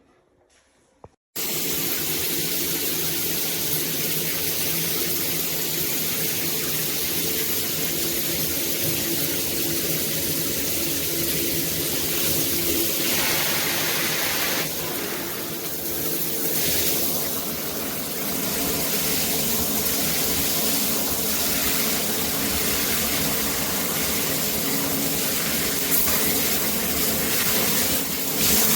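Water running from a shower head: a steady spray hiss with a steady hum underneath, cutting in suddenly about a second in; the hiss changes in tone a few times near the middle.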